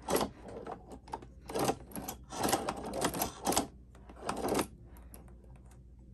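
Hand-cranked walking-foot cobbler sewing machine stitching waxed leather. Its needle and walking foot make a burst of clicks about twice a second, one stitch per stroke, and stop a little over four and a half seconds in.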